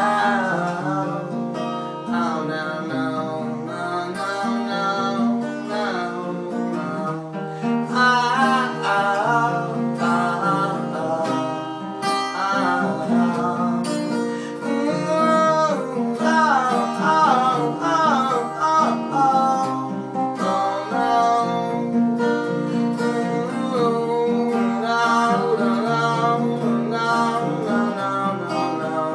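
Acoustic guitar strumming chords, with a wordless sung melody that slides and wavers in pitch over it.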